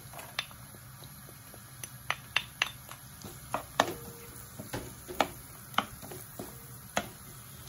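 Minced garlic cooking in melted butter in a nonstick pan while being stirred with a wooden spatula: a faint steady sizzle with irregular sharp pops and clicks, about a dozen of them.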